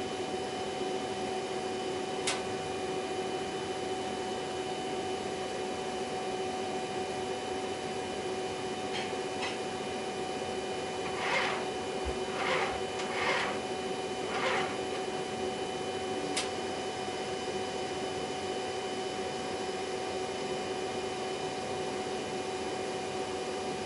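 HP Designjet 5000ps large-format printer sitting with a finished print, its fans humming steadily while it waits to cut the sheet. Two single light clicks are heard, and four short hissing swishes come about halfway through.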